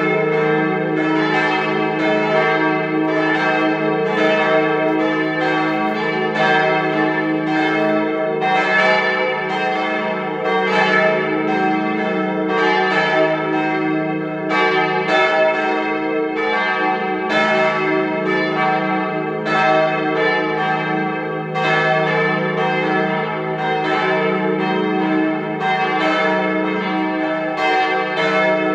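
Several swinging church bells ringing together as a partial peal, their strikes overlapping in an irregular stream about every half second to second over a continuous hum of ringing tones.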